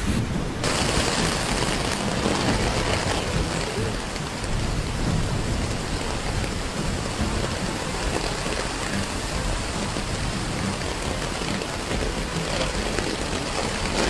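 Heavy rain pouring down and hitting the ground and vehicles, a dense steady hiss.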